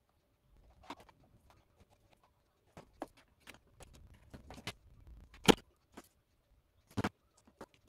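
Scattered light clicks and taps of small dollhouse pieces being handled and pushed into place in a cardboard dollhouse, with a sharper knock about five and a half seconds in and another about seven seconds in.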